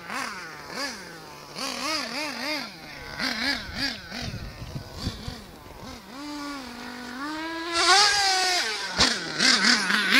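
Thunder Tiger MTA4 S50 Sledgehammer RC monster truck's motor revving in quick repeated bursts, its pitch rising and falling over and over. Midway it holds a steadier note, then climbs to its loudest run about eight seconds in. A low rumble comes in briefly around the middle.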